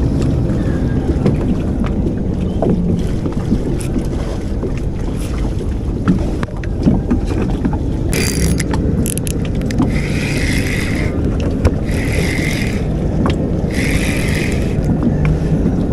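Spinning fishing reel being cranked in short bursts of about a second each, roughly every two seconds from about halfway through. A steady low rumble runs underneath.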